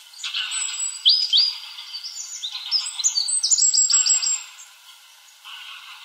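Goldcrest singing: a thin, very high-pitched song of rising notes that quickens into a fast run and stops about four seconds in.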